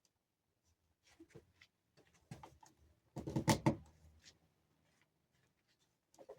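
Knocks and clicks of the back section of an animatronic's prop wheelchair being fitted into place, with a louder clatter lasting about half a second a little past three seconds in.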